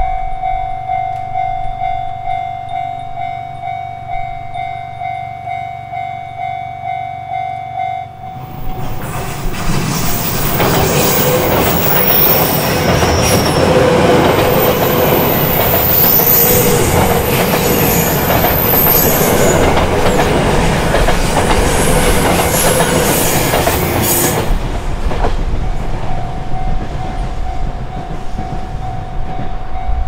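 Japanese level-crossing alarm ringing its repeating electronic bell. About eight seconds in, a JR 383-series limited express train passes for about sixteen seconds and drowns it out. After the train has gone the alarm is heard ringing again, fainter.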